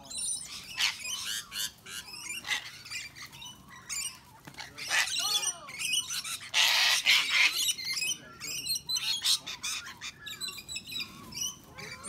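Sulphur-crested cockatoos and rainbow lorikeets calling in a flock: overlapping harsh squawks and short, high-pitched screeches. One long, harsh screech about six and a half seconds in, lasting about a second, is the loudest.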